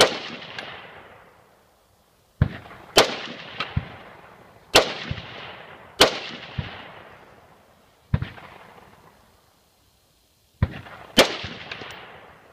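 Scoped AR-style rifle fired in a slow, uneven string of about eight shots, each crack trailing off in an echo.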